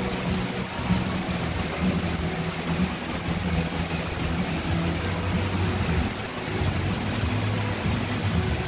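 Heavy rain pouring steadily onto a canal, with a low, steady engine-like hum underneath.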